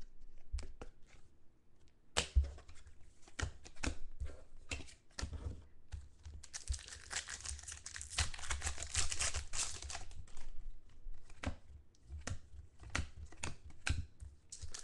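Foil wrapper of a 2013 Panini Contenders football card pack crinkling and being torn open, with scattered taps and clicks of packs and cards handled on the table. The longest stretch of crinkling and tearing runs from about halfway through for three or four seconds.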